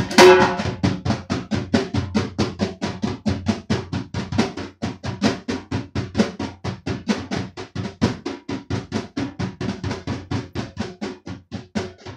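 Hand drumming on a nagara barrel drum and a frame drum: a fast, steady run of strokes with a loud accented hit just at the start. The rhythm imitates the chugging of a train.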